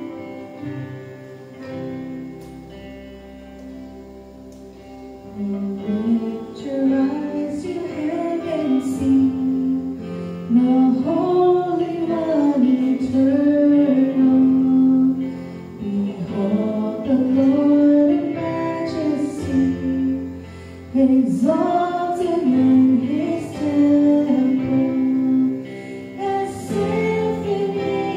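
Worship song with guitar and sustained chords; a sung melody comes in about five seconds in and carries on over the accompaniment.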